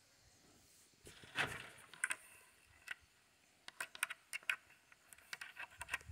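Footsteps and rustling through dry garden plants: soft crunches and a scatter of light, sharp crackles and clicks, thicker in the second half.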